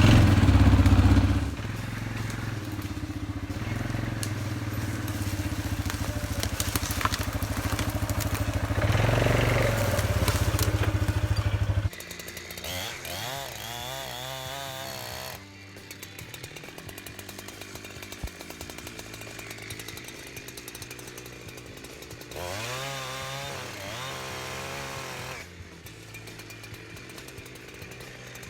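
Small gasoline engine running, loud and steady for about the first twelve seconds, then dropping off and carrying on quieter with revs that rise and fall several times.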